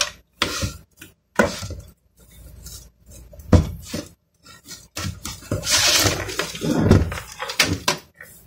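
Clattering and clinking of computer hardware being handled on a table: an Intel stock CPU cooler's aluminium heatsink and fan and a motherboard picked up, knocked and set down, in a string of short sharp knocks. About five and a half seconds in there is a longer scratchy rustle lasting about a second and a half.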